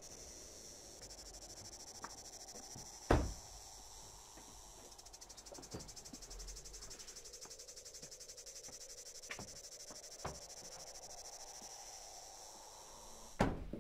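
Steady high-pitched chirring of insects, with a Citroën sedan's door slamming shut about three seconds in. A few light clicks follow, and another door knock comes near the end.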